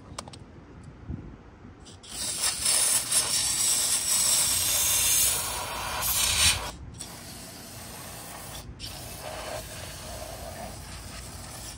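Aerosol cleaner spray hissing into a carburetor's jets: one long blast of about five seconds that starts about two seconds in, then a fainter hiss.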